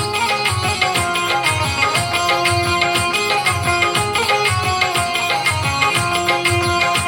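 Instrumental interlude of a Hindi Krishna bhajan: a melody line over a steady, even drum beat, with no singing.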